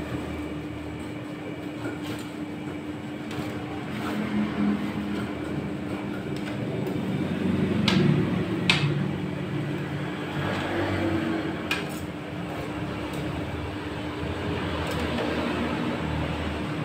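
A rolled ice cream machine hums steadily as its cold plate runs. A metal spatula scrapes the frozen steel plate, with a few sharp knocks around the middle.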